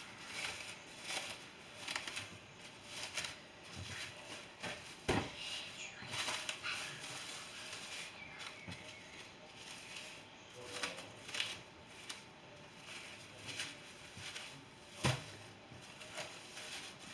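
Plastic cling film crinkling and rustling as it is pulled out and wrapped around a block of folded pastry dough, with two sharper crackles about five and fifteen seconds in.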